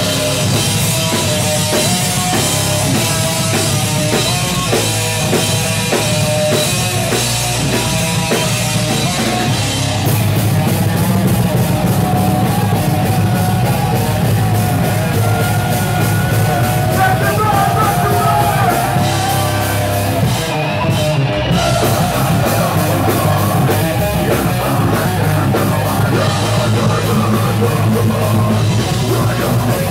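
A live heavy rock band playing loud: a drum kit and amplified guitars going without a break, the sound growing fuller and a little louder about ten seconds in.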